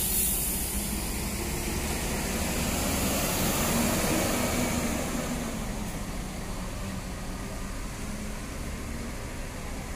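Diesel engine of a large tour coach pulling away, with a steady low hum. Its engine note rises and falls about four seconds in, then grows fainter as the coach drives off.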